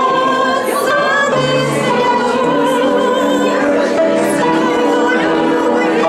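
Several voices singing a song together, long held notes with vibrato.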